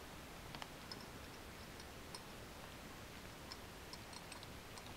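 Cats eating dry kibble: faint, irregular crunching clicks, a dozen or so spread unevenly over a low room hiss.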